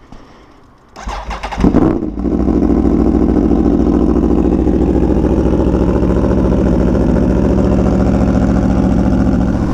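Cold start of a 2017 Aprilia Tuono V4 1100 Factory's V4 engine with an SC Project CR-T exhaust. The starter cranks briefly about a second in, the engine catches and flares up in revs, then settles into a steady idle.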